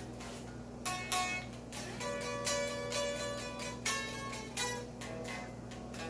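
Electric guitar played with a pick: single notes and short phrases plucked one after another, each ringing out briefly. A steady low hum runs underneath.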